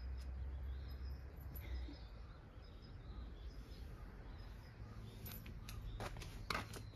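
Outdoor ambience with faint, scattered bird chirps over a low rumble that fades after about two seconds, and a few sharp clicks near the end.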